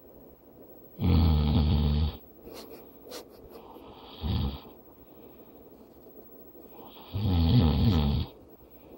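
A sleeping man snoring: two loud snores of about a second each, some six seconds apart, with a short, softer breath between them.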